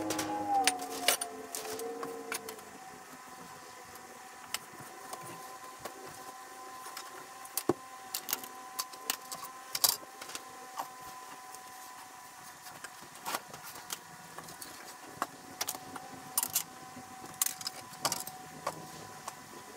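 A shovel scraping and scooping sawdust into plastic buckets: irregular scrapes, knocks and clatters, over a faint steady hum. A brief wavering tone sounds in the first couple of seconds.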